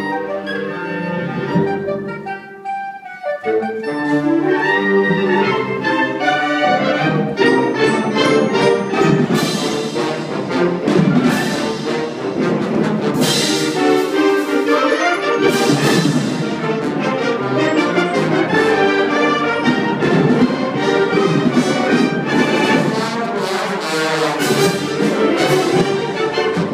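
A concert wind band of clarinets, saxophones and brass playing sustained chords. The sound thins out about two seconds in, and the full band comes back in about a second later, with loud accented hits around the middle.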